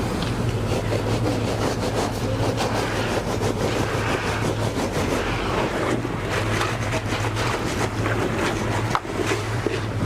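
Heavy engine running at a steady speed, with scattered scraping and knocking over it.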